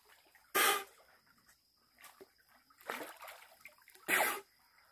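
A snorkeler blowing out hard through his snorkel in short gusts: one about half a second in, a weaker one around three seconds, and another near the end. Faint water lapping between them.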